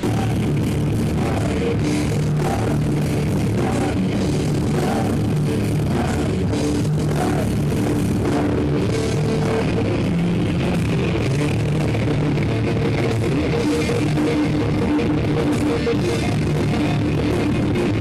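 Thrash metal band playing live: electric guitars, bass and a drum kit at a steady, loud level.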